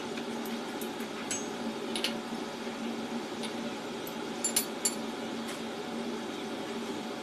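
China teacups set down on their saucers and metal teaspoons laid in them: a scatter of light porcelain clinks, the sharpest group of three about four and a half seconds in. A steady hum runs underneath.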